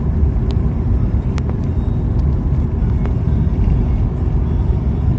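Steady low rumble of a car driving, heard from inside the cabin: road and engine noise, with a few faint ticks.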